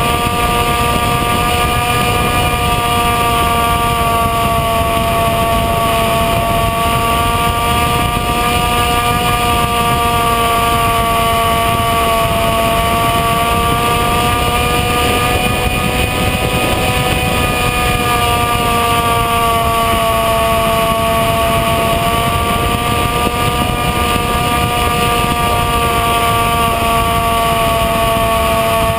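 Electric motor and pusher propeller of a Bixler RC foam plane, heard from its onboard camera in flight. The motor whines steadily with a pitch that drifts gently up and down, over wind rushing past the plane.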